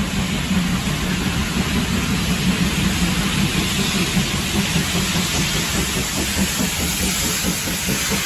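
Steam tank locomotive working hard up a steep 1-in-36 gradient, its exhaust and steam getting louder as it approaches, hauling carriages.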